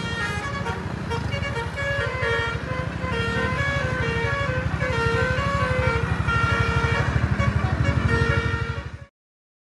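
Bus's multi-tone basuri 'telolet' air horn playing a melody of changing notes, with the bus engine running loudly beneath. The sound cuts off suddenly near the end.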